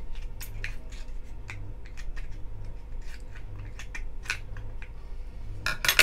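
Kitchen scissors snipping and crunching through a boiled lobster's shell: a run of irregular sharp snips and cracks, with the loudest crack near the end.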